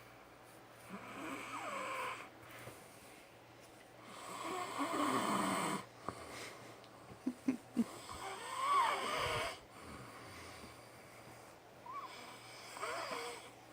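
A man snoring loudly in his sleep, with about five uneven snores a few seconds apart, the longest about four to six seconds in. A quick run of three short sharp sounds comes just after the middle.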